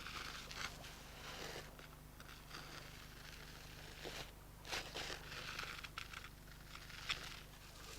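Faint, irregular rustling and crackling over a steady low hum, with a few slightly louder rustles around four and a half to five seconds in.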